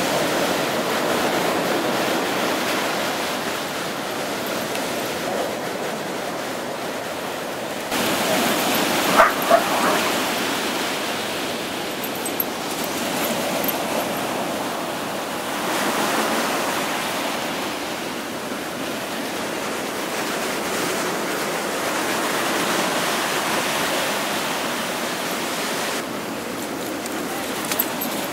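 Steady rush of breaking surf, with a dog barking twice about nine seconds in.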